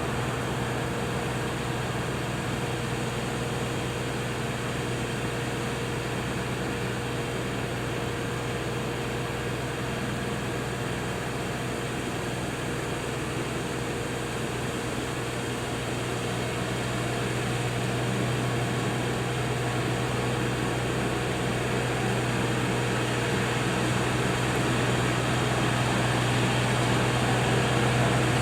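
LS MT240e compact tractor's diesel engine running steadily under load, driving a brush hog (rotary cutter) mowing brush. The steady hum grows slightly louder over the last third.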